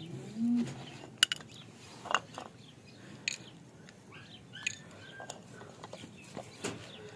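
Sparse light clicks and taps of dry cat kibble being picked off a concrete floor and dropped into ceramic bowls, with a few faint bird chirps in the background.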